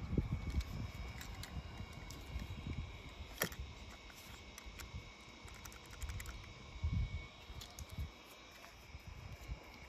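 Light handling clicks and taps from a die-cast toy car being handled and dipped into a plastic tub, with one sharper click about three and a half seconds in and a few soft low bumps near the end.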